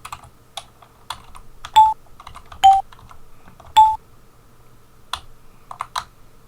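Computer keyboard keys clicking as notes are typed into a tracker. Three short, bright Amiga Soundtracker lead-sample notes, alternating between two pitches, sound as notes are entered.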